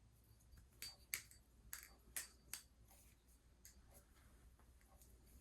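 Balisong (butterfly knife) being flipped through a fan combo: about eight sharp, irregularly spaced clicks and clacks as the handles swing round and strike the blade and each other. The loudest come about a second and two seconds in.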